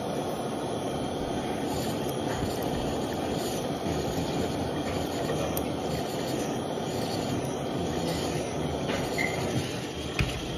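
Handheld butane torch burning with a steady hiss, heating the banger of a glass dab rig for a dab. There is one sharp click near the end.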